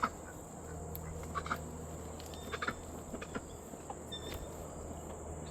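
A steady high insect trill runs under scattered soft rustles and clicks of hands working sweet potatoes loose from the soil of a grow bag.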